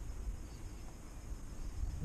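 Insects chirring steadily in the background, a thin, high, even sound, over a low uneven rumble on the microphone.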